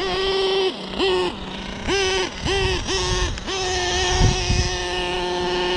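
Radio-controlled car's motor revving in short, quick throttle bursts, each rising fast to the same high pitch and dropping back, then held at that pitch for about two seconds towards the end.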